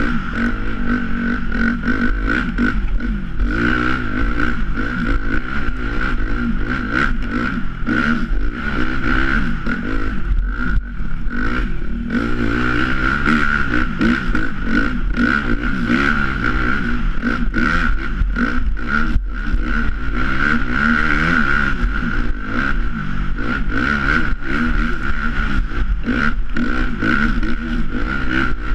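Dirt bike engine running steadily while riding a snowy forest track, with clatter and buffeting from the ride.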